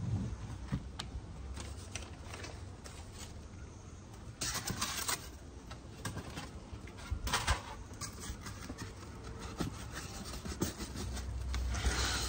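Plastic plug trays and cardboard packing rubbing and scraping as they are handled, in short bursts with scattered small knocks.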